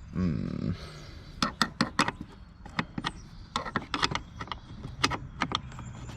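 Wrench working a stubborn 12 mm fastener on a brake master cylinder: a series of irregular sharp metallic clicks and clinks of the tool on the fitting, after a short low sound near the start.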